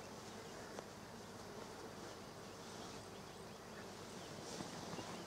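Flying insects buzzing steadily in the open air, faint and continuous.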